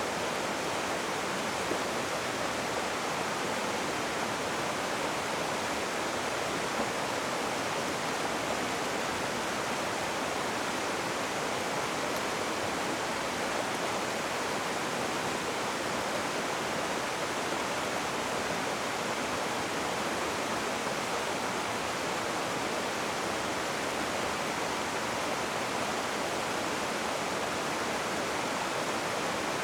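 Rushing river water: a steady, even rush with no breaks or changes.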